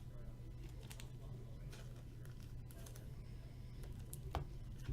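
Faint light clicks and taps of trading cards being handled and flipped through, with one sharper click near the end, over a steady low hum.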